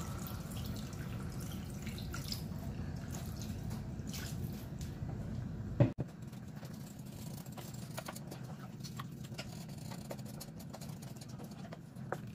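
Water trickling from a jug into a pan of beef rendang, then the sauce simmering with scattered small drips and pops as a wooden spoon stirs it. There is a sharp click about six seconds in, and a steady low hum drops away after it.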